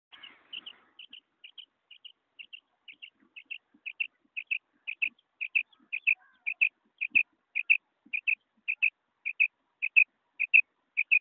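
Female quail calling: short, high double notes, about two pairs a second, repeated steadily and growing louder.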